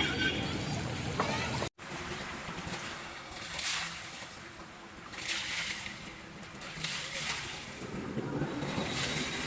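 Water sloshing and splashing, swelling and fading every second or two. Voices before an abrupt cut about two seconds in.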